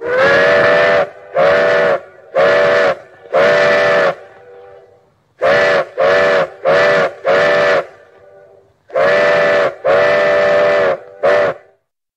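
Steam locomotive whistle sounding a chord in repeated blasts, in three groups: four blasts, then four quicker ones, then three, the last one very short.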